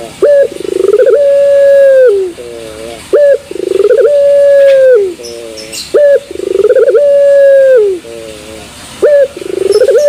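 Caged Barbary dove cooing over and over, about one phrase every three seconds. Each phrase has a short note and a rolling swell, then a long held coo that drops off at the end, followed by a short wavering tail.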